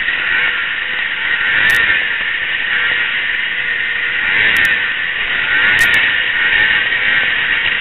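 Racing snowmobile running flat out, heard from a helmet camera as a steady loud rush of engine and wind noise. A few brief sharp clicks break in.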